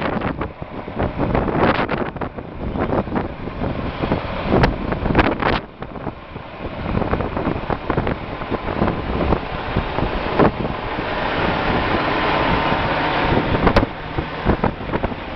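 Wind buffeting the microphone in uneven gusts, with a faint steady hum underneath in the second half.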